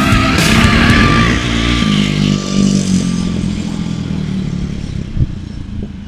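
An engine running, easing off and getting gradually quieter.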